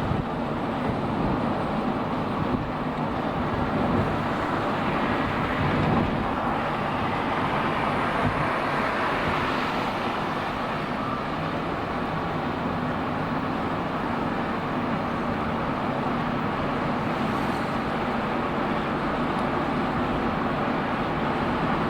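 Steady engine and road noise inside a moving car.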